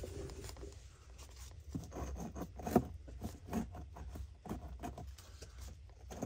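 Irregular rustling, scraping and light knocking of a gloved hand moving over the stacked stones of a stone-lined well and of the phone being handled, with one sharp knock about three seconds in.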